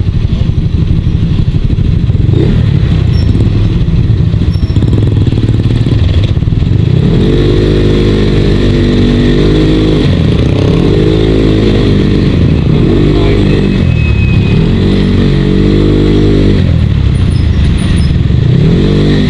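Motorcycle engine heard from the rider's seat while riding, over a heavy low rumble of wind and road noise. In the second half the engine note rises and falls several times as the throttle is opened and eased off.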